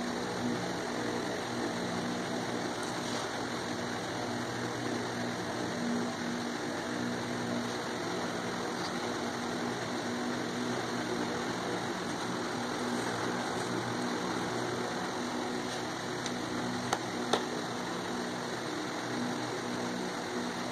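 A steady machine hum with a low drone and even noise, like a running fan or motor. Two short clicks come close together about three-quarters of the way through.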